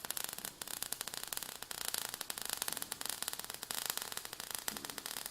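Faint crackling static: a steady hiss broken by many fast, irregular clicks.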